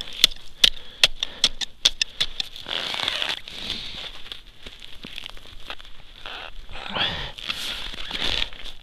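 A pole's metal tip striking thin river ice in a quick run of sharp taps. Scraping and crunching follow as it works at a small hole in the frosted ice.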